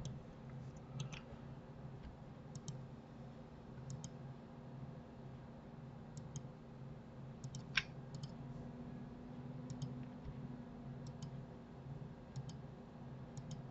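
Computer mouse clicks with a Shift key held, one every second or two and often in quick pairs, over a faint steady low hum.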